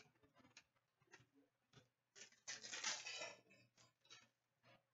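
Faint rustle and flicking of hockey trading cards being handled, then, about two seconds in, a louder crinkle of a foil card-pack wrapper lasting about a second.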